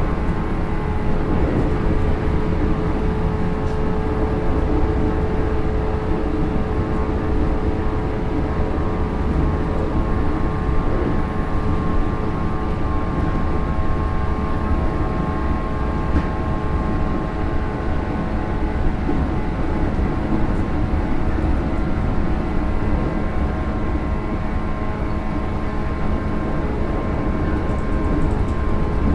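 JR 107 series electric train in motion, heard from inside the car: a steady whine of several tones from the resistance-controlled DC traction motors and gears over a continuous rumble of wheels on rail, cruising at an even speed between stations.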